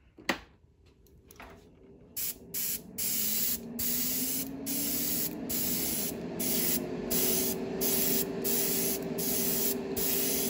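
Iwata Neo dual-action airbrush spraying thinned paint in short hissing bursts with brief breaks, starting about two seconds in, as the trigger is pulsed. A low hum underneath rises in pitch and then holds steady.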